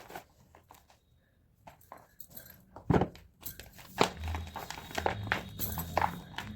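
Blocks of pressed gym chalk being crushed, crunching and crumbling. After a nearly quiet first second come scattered crackles, one sharp crack about three seconds in, and denser crumbling from about four seconds on.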